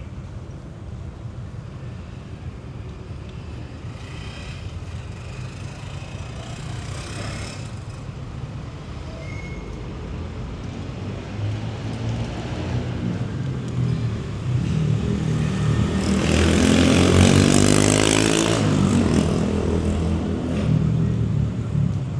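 A motor vehicle passes close by over a steady hum of street traffic. Its engine grows louder over several seconds, is loudest about 17 seconds in with a rush of engine and tyre noise, then fades.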